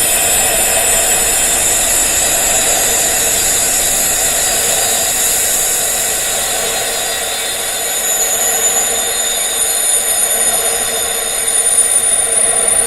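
Wind chimes tuned to tinnitus frequencies, ringing continuously as many overlapping high tones, easing slightly in the middle and swelling again near the end.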